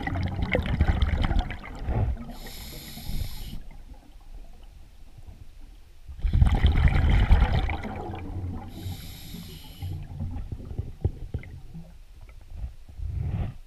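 Scuba diver breathing through a regulator underwater: a low rumble of exhaled bubbles, then about a second of the regulator hissing on the inhale, the cycle twice over about six seconds apart.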